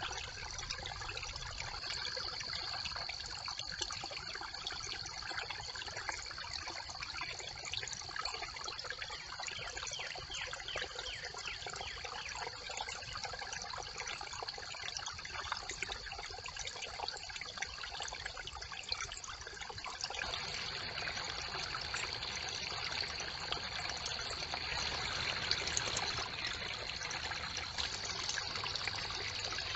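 Brook water trickling and splashing through a beaver's stick dam, a steady babble that grows a little louder about two-thirds of the way through. A faint steady high-pitched tone sits above it.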